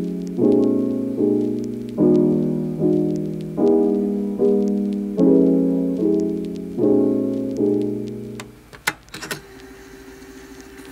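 Piano outro music: soft chords struck about once every 0.8 s and left to fade, ending about eight and a half seconds in. A few sharp clicks follow, then a faint steady hum.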